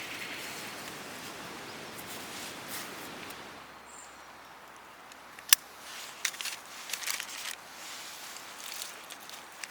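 Outdoor hiss with rustling, then one sharp click about halfway through, followed by scattered light taps and clicks of something being handled.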